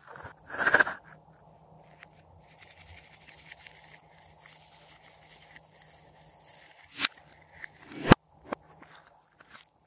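Scissors snipping into a rubber stress ball about half a second in. Then faint scraping and squishing as the ball's filling is squeezed out onto slime, with two sharp clicks near the end.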